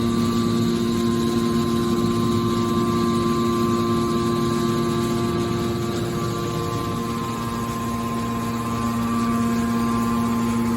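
Hydraulic steel baler's power unit running, a steady machine hum with a constant whine on top, easing slightly in level about seven seconds in.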